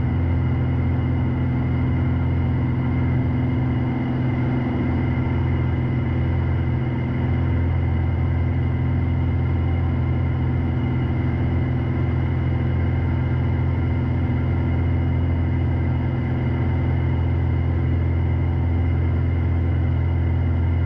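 Steady cabin drone of a Piper PA-46 Malibu's piston engine and propeller in the climb: a constant low hum made of several fixed tones, unchanging throughout.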